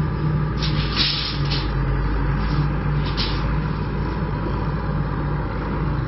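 Steady low rumble with a pulsing hum, and a few short scrapes about a second in and again near three seconds as a steel tape measure is drawn across a wooden trailer floor.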